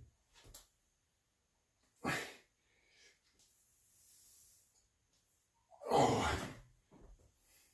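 A man's heavy breathing from exertion: a few sharp exhales, one about two seconds in and a louder one about six seconds in.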